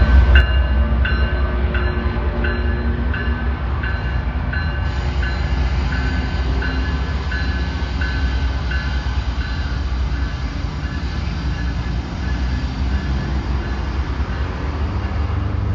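Vale train running past with a heavy, steady low rumble. A repeating high ringing sounds about two to three times a second over it, fading away over the first ten seconds or so.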